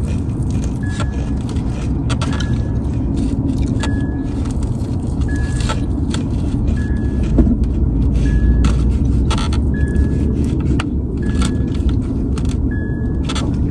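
A car's warning chime beeping steadily, one short high beep about every second and a half, over the low rumble of the car.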